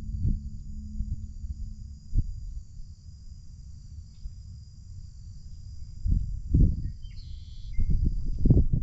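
Wind buffeting the microphone in gusts, stronger over the last few seconds, over a steady high-pitched insect trill from the marsh.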